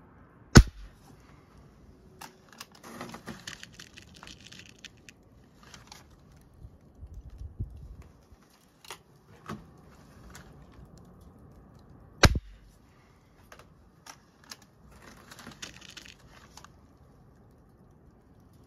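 .177 break-barrel spring-piston air rifle fired twice, each a sharp crack, the first shot just after the start and the second about twelve seconds later. The rifle's transfer port has been bored out. Between the shots come clicks and rustling as the rifle is handled.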